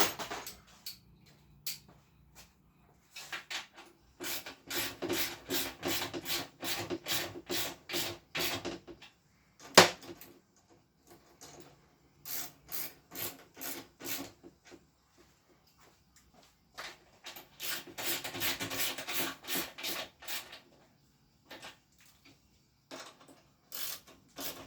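Bolts on a Honda ST50 moped being tightened with a hand tool: three runs of quick, rhythmic metallic clicking strokes, with one sharp knock about ten seconds in.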